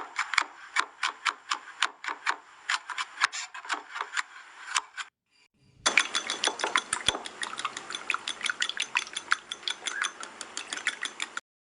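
A rapid series of sharp ratchet-like clicks, about five a second, in two runs with a short break about five seconds in.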